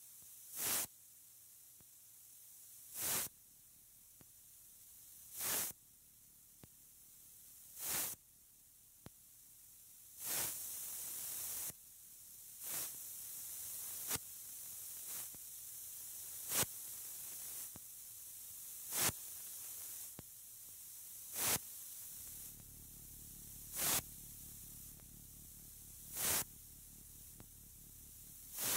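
Electronic music made of filtered noise: swelling bursts of hiss recurring about every two and a half seconds over a faint steady hiss. About ten seconds in a brighter hiss holds for over a second, and about three-quarters of the way through a low rumbling noise layer comes in underneath.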